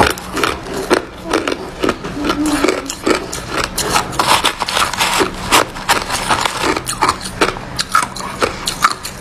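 Crushed frost ice crunching and scraping as a spoon digs through it in a plastic tray, in a dense, irregular run of crisp crunches, several a second.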